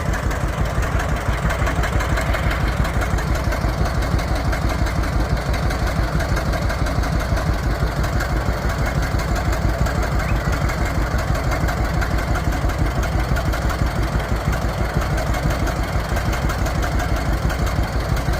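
1948 John Deere Model A tractor's two-cylinder engine running at a steady speed, its even putt-putt of individual firing pulses holding the same pace throughout.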